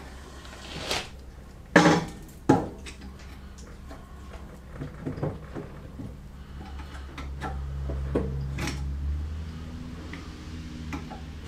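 Metal hand tools clanking and knocking against a snowmobile shock's seized bolt and bushing as it is pried at, with a few sharp clanks in the first three seconds and lighter knocks after. A low steady hum runs underneath and grows louder in the middle.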